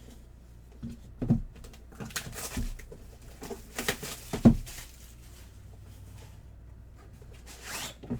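Hands opening and handling a trading card box and its packaging: a run of light knocks and thuds with short rustles of wrapper or cardboard.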